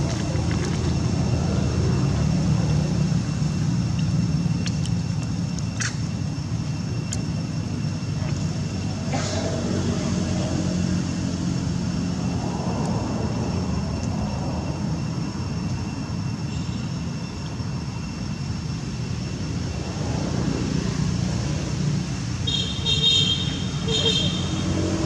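Steady low rumble of road traffic, with a few short high-pitched chirps near the end.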